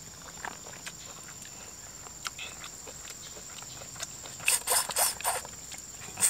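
Close-up eating sounds of people eating rice and side dishes by hand from a banana-leaf spread: small clicks, smacks and rustles. About four and a half seconds in comes a louder cluster of crackling, rustling noises. A steady thin high tone runs underneath.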